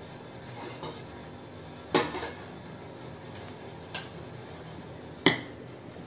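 Steel kitchen utensils clinking against an idli steamer: four sharp metallic clinks, the loudest about two seconds in and near the end, over a steady low hiss.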